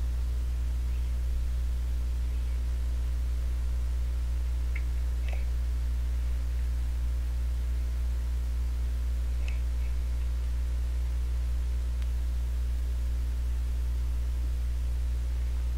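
Steady electrical hum on the recording microphone, with a few faint short clicks about five and nine seconds in.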